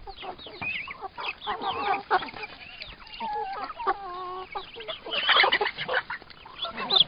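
A mixed poultry flock of chickens clucking and calling, many short calls from several birds overlapping. About three seconds in, one bird holds a longer, steady call for about a second, and a burst of calls comes around five seconds in.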